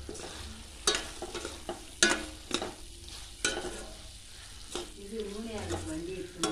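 Metal spatula stirring chicken frying in oil in a stainless steel pot, with a steady sizzle and several sharp clacks of the spatula against the pan.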